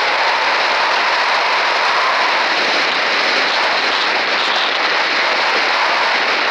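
Loud, steady rushing noise of strong wind and breaking surf, with no let-up.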